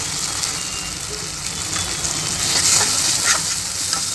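Chopped onions sizzling in oil in a kadai, with ginger-garlic paste and turmeric just added, as a spatula stirs and scrapes through them; the sizzle grows a little louder past the middle.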